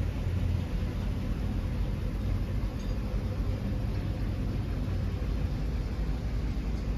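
A vehicle engine idling: a low, steady rumble with no change in speed.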